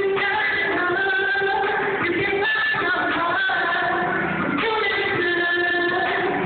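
Female voice singing a melody with long held notes over musical accompaniment.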